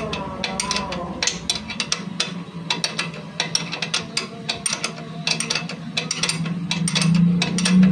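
Rapid irregular clicking of a ratcheting wrench working back and forth as the motorcycle side-stand pivot bolt is tightened.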